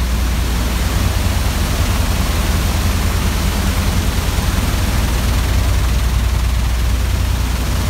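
Oilfield shale shaker running, its vibrating screen deck shaking wet drill cuttings along and off the end: a steady low machine drone with an even hiss over it.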